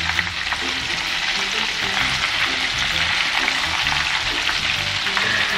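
Oat-coated chicken pieces deep-frying in hot canola oil, a steady sizzle, as tongs turn the pieces in the pot.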